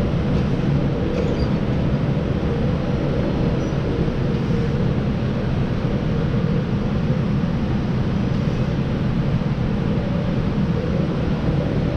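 Steady hum of running fans, a constant low drone with an even rush of air and no change in pitch.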